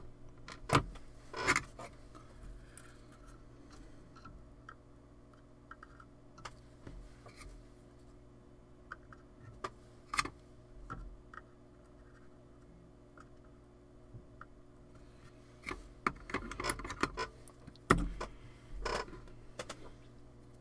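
Small clicks and rattles of components and tools being picked up and set down on a workbench. They come in scattered clusters, busiest in the last few seconds, over a faint steady hum.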